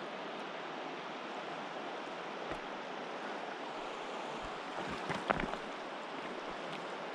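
River water running steadily over a shallow stony bed, an even rushing noise. A few short knocks and crunches come through about five seconds in.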